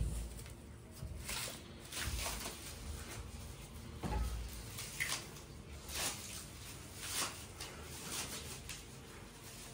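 Handling noise from a freshly assembled mountain bicycle: short light knocks and clicks about once a second, some with a brief rattle.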